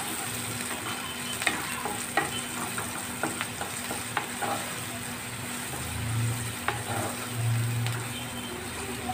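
Chopped onions with grated ginger and garlic sizzling in hot oil in a kadhai while a spoon stirs them, with scrapes and light clicks against the pan as the onions soften. A low hum comes in about six seconds in and fades near the end.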